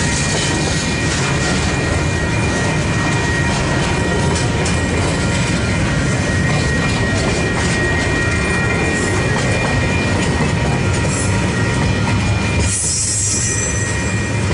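Freight train of container wagons passing close by, wheels rumbling and clattering over the rails, with steady high-pitched ringing tones over the rumble and a short high hiss near the end.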